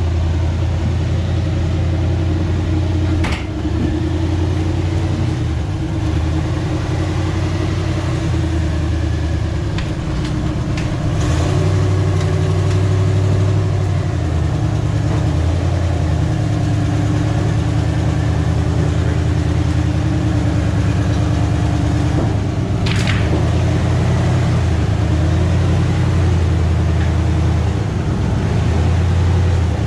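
Motor vehicle engine running steadily with a low drone that rises and falls a little in level. A short sharp sound cuts through it about three seconds in, and again a little past the middle.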